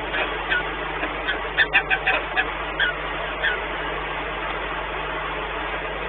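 Peregrine falcons calling in the nest: a run of short, sharp calls, thickest about two seconds in and stopping about halfway through. Under the calls are steady background noise and a low hum.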